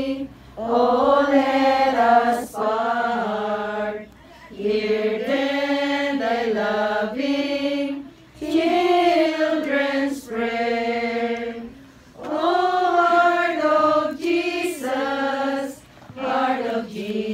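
A group of voices singing a slow devotional hymn in unison, in phrases of about four seconds with a short breath between each.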